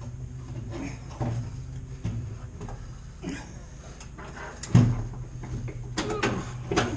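Scattered knocks and clunks of metal parts being handled, with the loudest knock about five seconds in and a quick run of knocks near the end, over a steady low hum.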